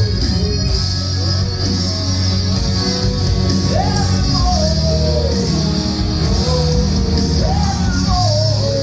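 A song playing: a voice singing a gliding melody over steady bass and band accompaniment.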